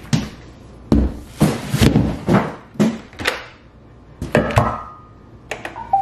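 Weight plates being lifted off a Roomba robot vacuum and set down in a stack on a wooden floor: a run of knocks and thuds, one clank ringing briefly about four and a half seconds in. A short electronic tone starts right at the end.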